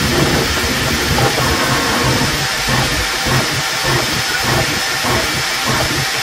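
Bambu Lab A1 3D printer running a print: a steady rushing hiss of its cooling fans, with the motors whirring as the toolhead and bed move.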